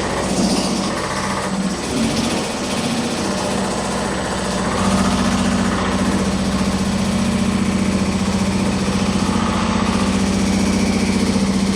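Reciprocating sheet-metal shaping machine running steadily, its dies pecking rapidly at a steel panel with a constant motor hum; it gets louder about five seconds in as the work is fed through.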